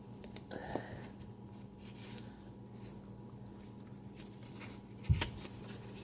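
Faint rustling of paper pages being handled and turned in a handmade junk journal, with a soft thump about five seconds in.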